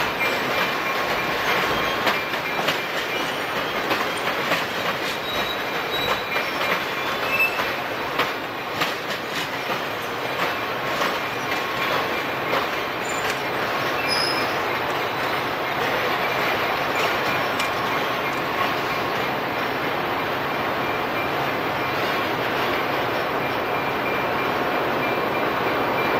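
Bilevel passenger train rolling past over yard trackwork, its wheels clicking over rail joints and switches, most often in the first half, with a few short thin wheel squeals. A steady rolling rumble lies under it throughout.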